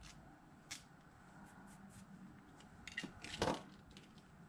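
Light handling noise of small parts and plastic parts bags on a work table: a single click about a second in, then a short run of clicks and a rustling clatter about three seconds in, the loudest part.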